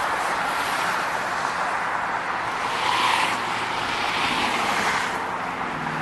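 Steady roar of freeway traffic, with passing vehicles swelling louder about three and four seconds in.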